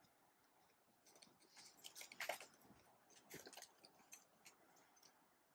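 Faint scattered clicks, taps and light scrapes of handling, thickest around two seconds in and again a little past three seconds.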